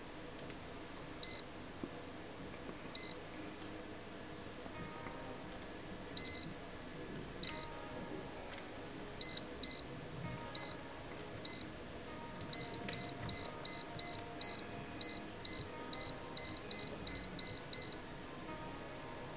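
Lowrance Elite 5 HDI fishfinder/chartplotter giving short high key-press beeps as its zoom buttons are pressed: a few single beeps spaced a second or more apart, then a fast run of about three beeps a second for several seconds near the end.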